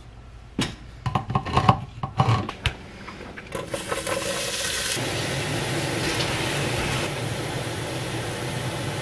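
A few knocks of a stainless steel pot and utensils, then chopped onion tipped into the hot pot starts sizzling about three and a half seconds in, a steady hiss that carries on.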